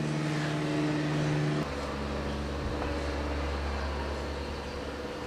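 Steady low mechanical hum with a few even tones, changing abruptly to a deeper drone about a second and a half in.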